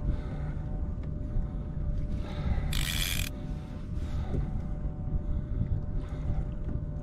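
Fishing reel working under heavy load against a hooked cobia, with a short loud rasp about three seconds in.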